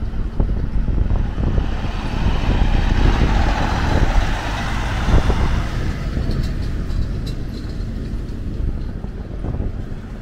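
Street traffic led by a heavy tractor-trailer passing close, its engine and tyre noise swelling to its loudest about four to five seconds in, then easing off.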